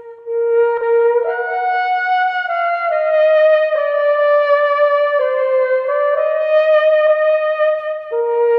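A slow solo melody on a brass instrument like a trumpet, in long held notes that step up and down in pitch every second or so.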